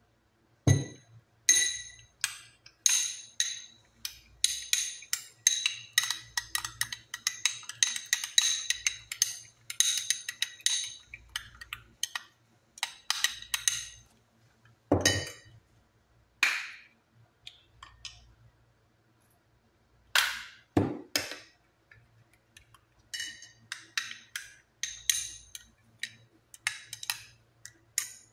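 A spoon stirring in a small glass, clinking with a ringing tone against its sides in fast runs, with a few heavier knocks in between.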